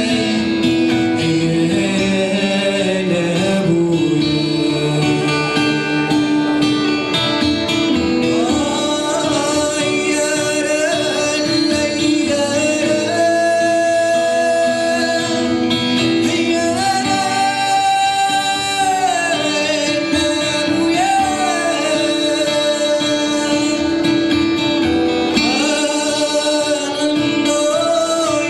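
Man singing live into a microphone while playing an acoustic guitar. Near the middle his voice holds long notes, sliding between pitches.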